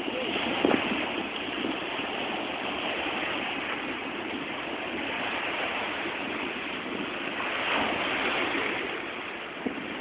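Rough, wind-driven lake waves breaking and splashing against the shoreline and docks, a steady rush of surf.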